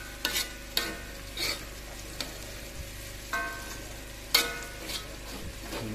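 Spice paste and spring onions frying in hot oil in a metal wok with a steady sizzle, stirred with a metal slotted spatula that scrapes and clinks against the pan about seven times, a few strokes ringing briefly. The loudest clank comes about four and a half seconds in.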